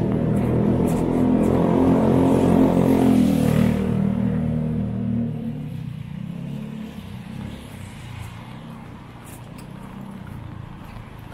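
A motor vehicle's engine passing close by on the wet street: it builds, is loudest about three seconds in, and fades away by about six seconds. After it, a steady hiss of drizzle remains.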